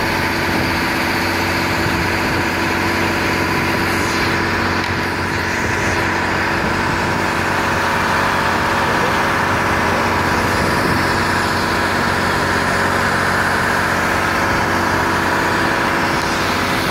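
Fishing boat's engine running steadily while under way: an even, continuous drone.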